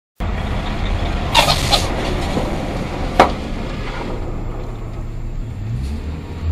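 Steady low engine and road noise of a moving vehicle heard from inside its cabin, cutting in just after the start, with a couple of light clicks around a second and a half in and a sharper knock about three seconds in.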